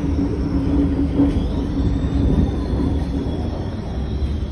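Alstom 1981-stock (5700 series) metro train heard from inside the car, slowing into a station: low running rumble with a steady hum that fades out about two seconds in, and a high squeal from about a second and a half in that slides slightly down in pitch.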